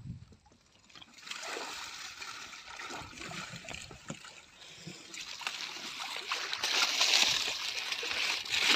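Water splashing and sloshing with dense crackles, starting about a second in and growing louder toward the end.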